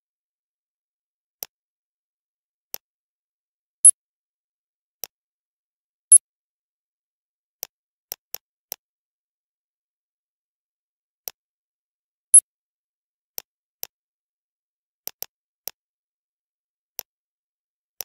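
Computer mouse clicking: single sharp clicks at irregular intervals, about twenty in all, three of them much louder than the rest.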